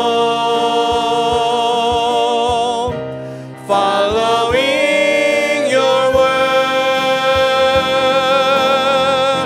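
A man singing a slow worship song over instrumental accompaniment, holding two long notes with vibrato, the first fading out about three seconds in before a rising phrase leads into the second.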